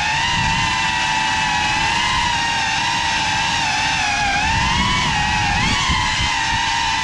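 Cinelog 35 FPV cinewhoop drone's motors and propellers whining steadily over a low rushing noise. The pitch wavers and dips and rises briefly around four to five seconds in as the throttle changes.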